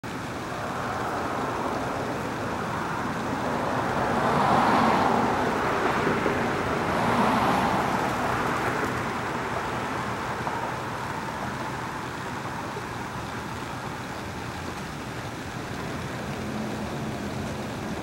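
Road traffic noise: a steady hum of passing cars, swelling twice as vehicles go by, about four and seven seconds in.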